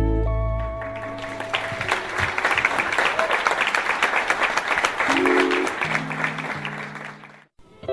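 A Hawaiian song's final held chord dies away into audience applause that runs several seconds and fades out, with a few soft low instrument notes under it near the end.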